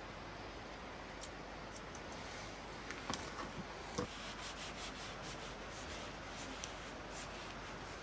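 Steady rush of the Trask River flowing, with a few light clicks and knocks about three and four seconds in and fainter ticks after.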